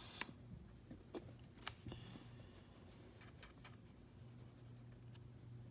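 Near silence over a steady low hum, with scattered faint clicks and taps from a laptop's trackpad and keys: a few in the first two seconds, then a quick run of light ticks around three seconds in.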